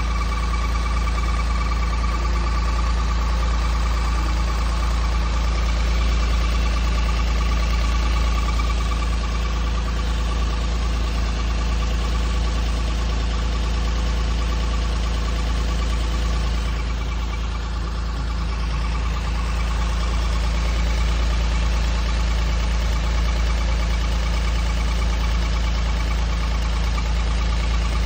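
Daihatsu Hijet Cargo's 660 cc three-cylinder engine running steadily with an abnormal noise, a steady whine over the low engine rumble, the fault the van is being shown for.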